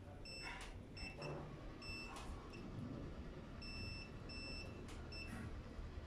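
Clamp multimeter's continuity beeper sounding in short, irregular beeps that cut in and out while the harness wire is handled: the sign of an intermittent break in a fatigued wire of the washing machine's wiring harness. Faint clicks and rustles of the wires being moved come between the beeps.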